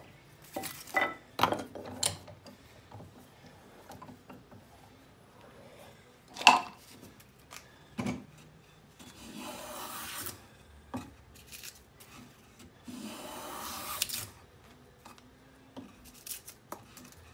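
Wooden knocks and clunks as a board is changed in a bench vise, with one sharp knock, the loudest sound, about six and a half seconds in. Then two hissing strokes, about a second each, of a Lie-Nielsen No. 62 low angle jack plane shaving a 2x4.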